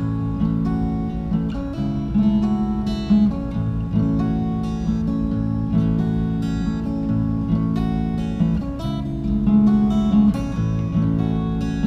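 Acoustic guitar strummed and picked in an even rhythm, moving through a repeating chord pattern.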